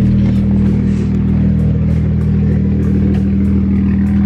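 BMW 335i's turbocharged straight-six idling steadily just after a start, sounding normal at idle. The owner suspects faulty coil packs behind misfires that show up only under boost.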